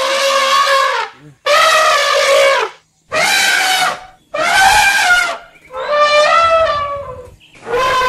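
Asian elephant trumpeting: a run of about six loud calls in quick succession, each a second or so long and holding a fairly steady pitch.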